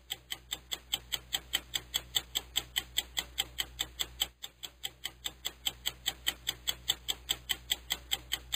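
Rapid, evenly spaced ticking, several ticks a second, over a faint steady low hum.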